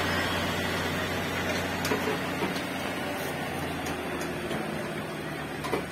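Heavy haulage truck's diesel engine running steadily as the slow-moving load passes, its low hum slowly fading.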